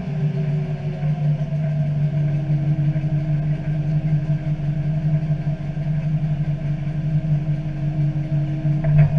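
McHale C460 straw chopper running, driven by a Deutz-Fahr DX 4.70 tractor with an air-cooled four-cylinder turbo engine: a steady machine drone. A steady whine joins about two seconds in and stops just before a couple of clicks near the end.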